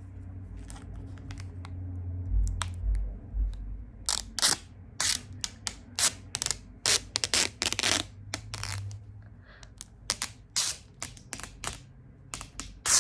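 Gaming headset packaging being opened and handled: a couple of low bumps, then from about four seconds in a dense, irregular run of sharp clicks, taps and crinkles.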